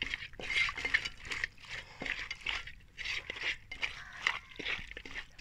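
A hand mixing raw rabbit pieces in a metal plate: irregular wet squelching and rubbing of the meat, with a few light knocks against the plate.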